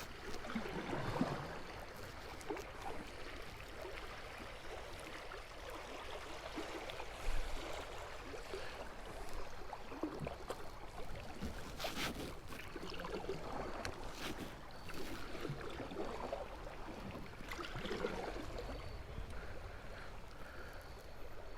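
Water moving around a kayak drifting on a river, with a few small knocks and clicks from the boat.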